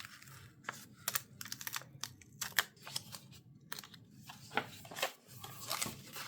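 A paper sticker being peeled off its sticker-book backing sheet, with irregular light clicks and crackles of paper handling.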